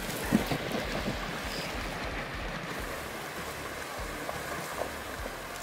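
Water rushing and splashing around a Lada Niva as it drives through a shallow river ford, loudest in the first second.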